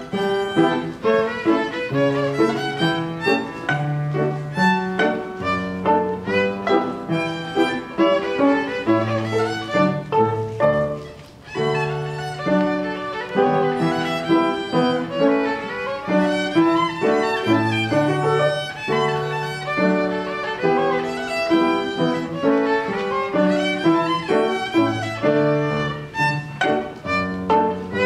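A child's violin playing a lively tune in quick, short notes over piano accompaniment, with the piano's bass notes sounding beneath. There is a brief pause about eleven seconds in.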